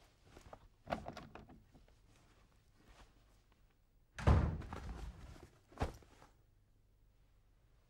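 Soft footsteps on a hard floor, then a wooden interior door pushed shut with a heavy thud about four seconds in. A shorter knock follows about a second and a half later as a shoulder bag is set down on a bedside table.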